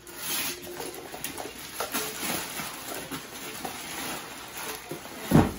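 Wrapping paper and a cardboard box rustling and scraping as a gift is opened, with scattered small knocks and clicks from handling. One loud, short thump about five seconds in.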